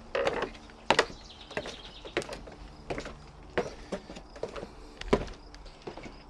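Footsteps of a person walking at a steady pace: sharp knocks, roughly one every two-thirds of a second.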